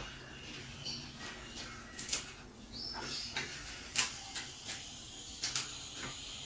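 Raw leafy greens picked off their stalks by hand: several sharp, crisp snaps with leaf rustling between them.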